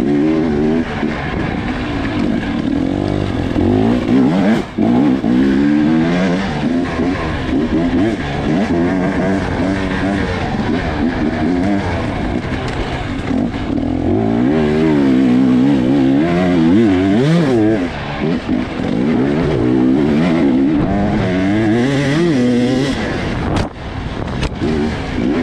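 Dirt bike engine at race pace, picked up close by a helmet-mounted camera, revving up and down over and over as the throttle is opened and closed. The sound drops out briefly about five seconds in, and there are a few sharp knocks near the end.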